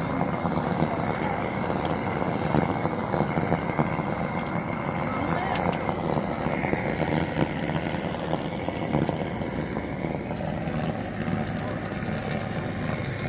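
Busy market crowd ambience: many voices talking at once, with a steady background of street noise.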